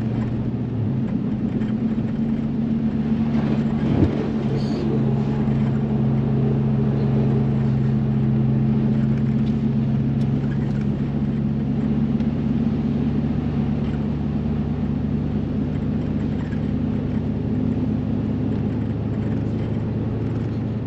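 Car engine running with a steady low drone while the car is driven, and a single knock about four seconds in.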